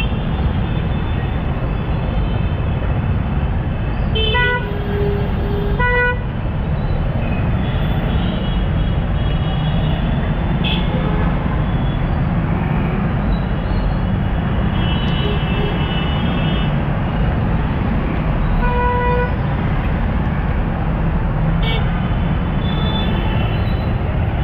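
Congested city traffic: a steady low rumble of engines, with vehicle horns honking again and again. The toots come from several different horns, some low and some high-pitched, with a cluster about four to six seconds in and more later on.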